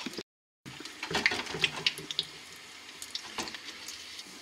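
Hot seed oil frying, a soft hiss with scattered small crackles. The sound drops out completely for a moment just after the start.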